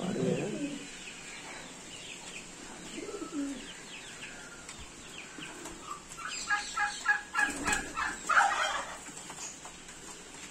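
Pigeons cooing in their breeding cages, with low falling coos at the start and again about three seconds in. From about six and a half seconds, a run of higher, quickly repeated bird calls follows, with a brief knock in the middle of it.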